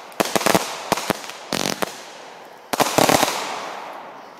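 Fireworks going off in rapid clusters of sharp bangs and crackles: a quick run at the start, a dense burst around the middle, and a last volley just past three seconds that fades away.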